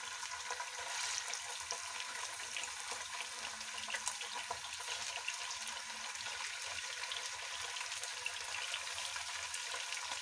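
Raw chicken pieces and sliced onions sizzling in hot ghee over a high flame: a steady frying hiss with many small crackles and pops.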